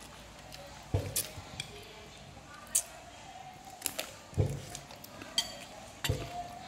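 Metal spoon clinking and scraping against a bowl of rice, with several sharp clinks spaced irregularly and a few dull knocks on the table.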